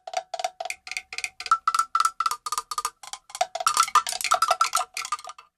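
Tear-off zip strip being pulled around an LOL Surprise Hair Goals packaging tube, tearing open in a quick run of sharp clicks, several a second, each with a slight ringing pitch, thickest near the end and then stopping.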